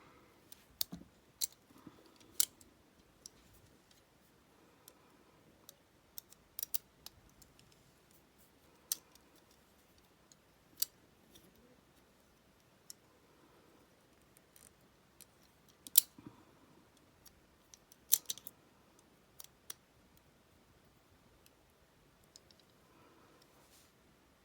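Metal tweezers probing and pushing inside a handcuff's lock, making irregular sharp metallic clicks and ticks every second or so. The cuff has not yet come open.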